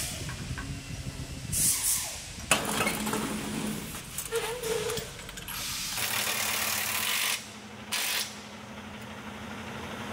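Truck repair shop noise during work on a truck frame: a steady hiss with louder bursts of air hiss and a sharp knock, changing abruptly several times.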